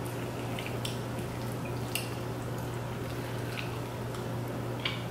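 Scattered wet clicks and squishes of sauce-covered crab legs being picked apart by hand and the meat dug out and eaten, over a steady low hum.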